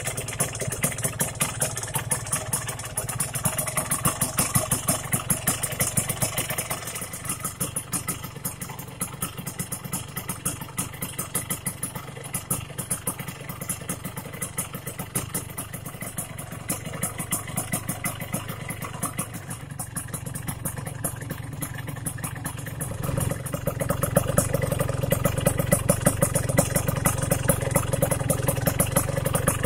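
Yamaha RX-King's two-stroke single-cylinder engine idling with a fast, even popping beat, freshly run after a cylinder rebore with a new liner. It gets louder for the last several seconds.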